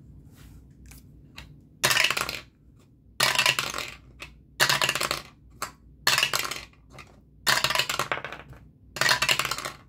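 A ten-sided die clattering down through a dice tower and into its tray, dropped in again and again: six rolls, one about every second and a half.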